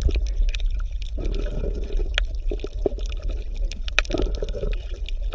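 Underwater ambience from a camera filming a school of fish: a steady low rumble and water sounds, with a few sharp clicks, the loudest about two and four seconds in and one near the end.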